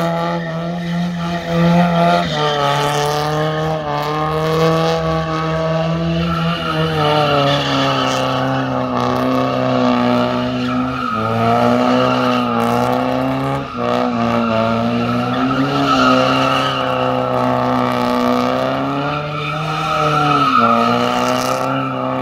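Car engine held at high revs while the tires squeal and skid through continuous donuts on asphalt. The engine note rises and falls as the throttle is worked, dropping in pitch about two seconds in and again around seven seconds, over a steady tire screech.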